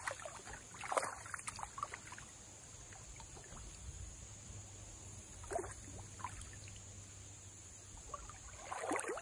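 A hooked smallmouth bass splashing in the water as it is reeled in to the kayak: a few short splashes and trickles, over a low steady rumble.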